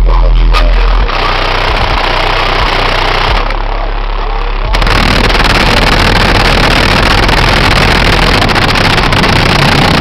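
Loud, bass-heavy music played through a truck's car stereo with two Pioneer 10-inch subwoofers, the deep bass heavy and the sound distorted. About five seconds in it turns denser and brighter.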